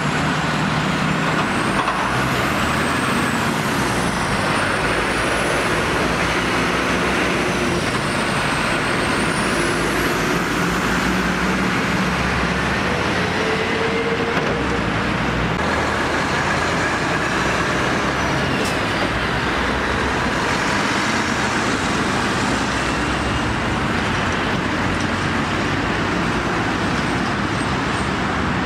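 Articulated diesel lorries and other road traffic driving past, their engines running with steady tyre and road noise. A faint high whine rises and falls during the first half.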